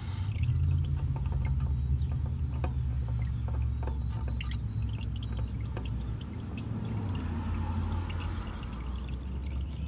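Engine oil dripping and trickling into a drain container as the oil filter is unscrewed, with scattered small clicks over a steady low hum.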